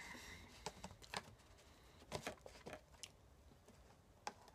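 Near silence broken by about half a dozen faint, scattered clicks and taps.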